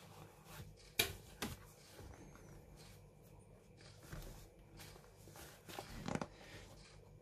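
Faint handling noises of leather boxing gloves being turned over in the hands: soft rustles and a few light taps, the sharpest about a second in.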